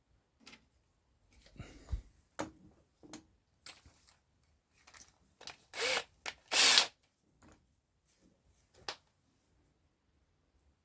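Intermittent workshop handling sounds: short knocks, taps and scrapes of a wooden blank and tools. About six seconds in there are two short, loud bursts close together.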